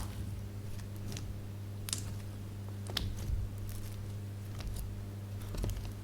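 Slime being squeezed and stretched by hand, giving scattered small clicks and pops over a steady low hum.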